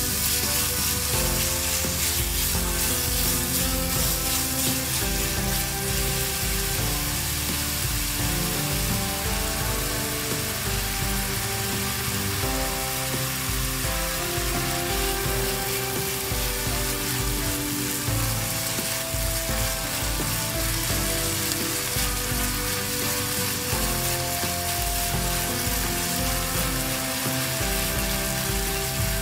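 Ground pork sizzling in oil in a nonstick wok as it is stir-fried and turned with a silicone spatula, a steady hiss of frying, with soft background music underneath.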